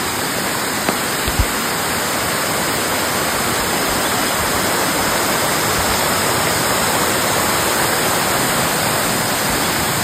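Waterfall and the rocky stream below it rushing steadily, an even hiss of falling water. Two soft low thumps come about a second in.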